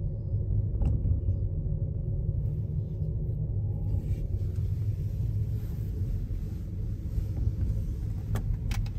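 Steady low rumble inside a moving gondola cabin as it travels up the cable, with a couple of light clicks near the end.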